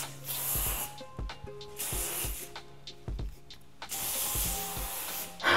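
L'Oréal Professionnel Tecni.art Fix Anti-Frizz aerosol hairspray sprayed onto the hair in three hissing sprays, the last one longer, over background music with a steady beat.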